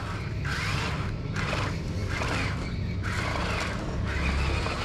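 Small electric motors and plastic gears of a radio-controlled dump truck whirring as its tipper bed lowers and it drives, over a steady low rumble, with the noise swelling and easing roughly once a second.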